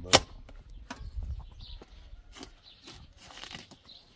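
A single sharp, loud knock just after the start, followed by scattered lighter clicks and knocks and a short rustle about three and a half seconds in.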